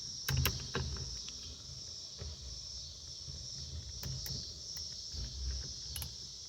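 A few scattered sharp clicks and taps of a wrench turning the steering-wheel nut, over a steady high buzz of crickets.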